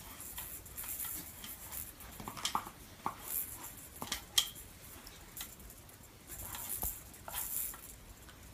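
Siberian husky sniffing at close range in short hissy bursts, with soft rustles and clicks and one sharp click about four seconds in.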